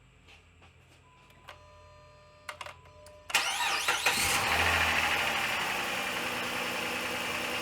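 2005 Dodge Magnum's 3.5-litre V6 started on the first try on a new AGM battery: after a few faint clicks and a thin tone, the starter cranks briefly about three seconds in, the engine catches and revs up, then settles into a steady idle.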